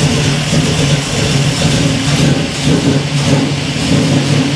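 A 1967 Camaro's engine running steadily, just fired up from the key for its first run on new wiring.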